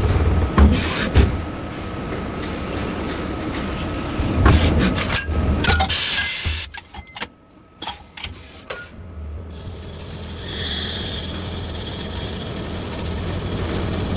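Slant-bed CNC lathe running and turning, with a mechanical hum and several sharp clunks. The noise drops away briefly about halfway through, then settles into a steadier hum with a faint high whine.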